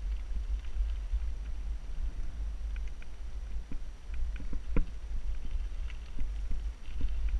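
Mountain bike rolling down a rocky dirt singletrack: a steady low wind rumble on the action camera's microphone, with scattered clicks and knocks as the bike rattles over stones, one sharper knock a little past halfway.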